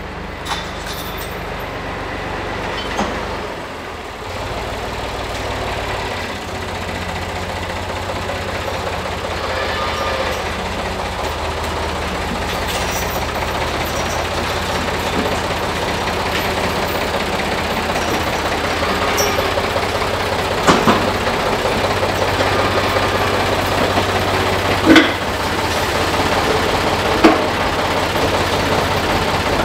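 Case/David Brown 885 tractor engine running, growing steadily louder as the tractor pulls in with its loader bucket full of sawdust. A few sharp knocks come near the end as the bucket is tipped.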